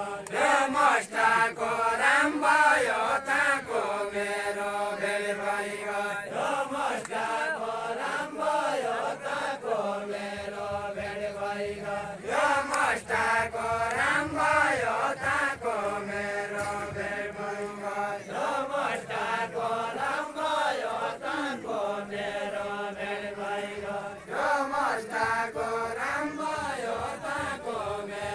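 A group of voices singing a Deuda, the Far-western Nepali folk song of the ring dance, in unison chanted phrases that rise and fall and repeat every few seconds.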